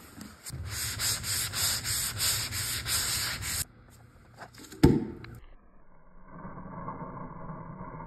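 Sanding block rubbed back and forth over dried joint compound on a plaster ceiling, in rhythmic strokes of about two a second, stopping abruptly about three and a half seconds in. A sharp knock follows about a second later, then a fainter, muffled steady noise.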